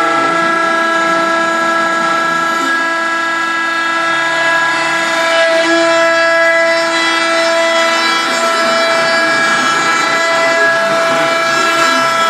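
CNC router running, its spindle giving a steady whine with a noisy cutting hiss underneath.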